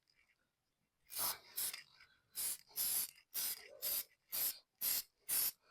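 Aerosol chain cleaner sprayed onto a motorcycle chain in about nine short, even bursts, roughly two a second, starting about a second in.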